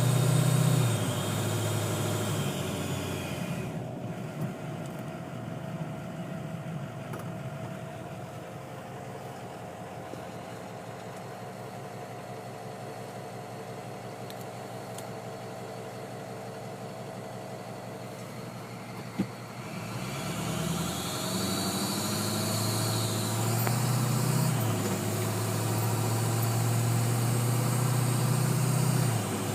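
Ford 6.0L Power Stroke turbo-diesel V8 held at raised revs, dropping back to idle a few seconds in and revved up again about twenty seconds in. The turbo's high whine falls and rises with the revs, along with a whooshing hiss that the owner takes for air escaping on the turbo's intake side.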